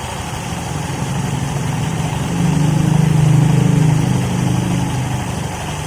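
Honda Beat scooter's single-cylinder engine running with the CVT cover off, drive belt and pulleys spinning, while CVT grease is smeared thinly on the belt to quiet a rough, growling CVT. The sound swells for about two seconds in the middle, then settles back.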